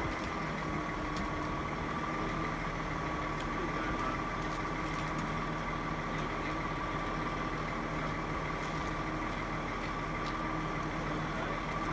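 Heavy-haulage lorry's diesel engine idling steadily, with a constant high whine running over it.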